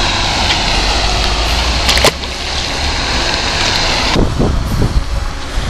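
Steady wind buffeting the camera microphone, with a low rumble. A few sharp clicks come about two seconds in, and the hiss eases about four seconds in.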